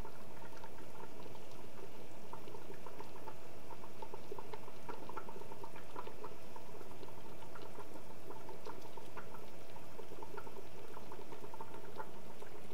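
Stockpot of pho broth bubbling at a steady boil, with many small bubble pops.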